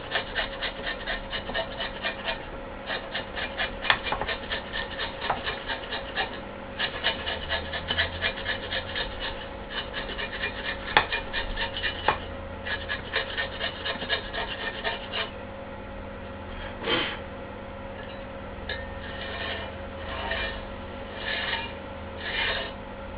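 Rapid rasping strokes of hand scraping or rubbing on a loudspeaker part, several strokes a second in short spells, stopping about 15 s in. Then come five slower single strokes, spaced a second or so apart.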